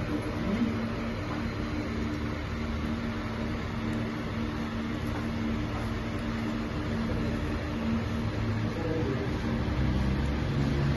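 A steady mechanical hum with several held low tones over a constant hiss.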